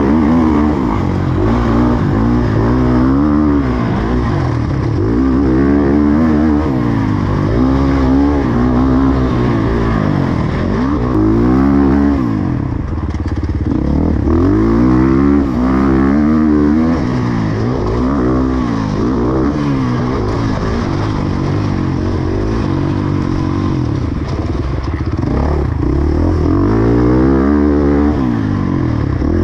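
Motocross bike engine revving hard, its pitch climbing and dropping again every couple of seconds as the rider opens and closes the throttle around the track.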